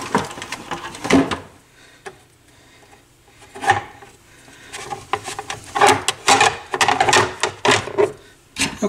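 Hands handling a turntable's metal chassis and housing parts during reassembly: scraping, rubbing and clacks against each other and the wooden workbench. A lull from about two to three and a half seconds in, a single knock just after, then a busy run of rubbing and clicks near the end.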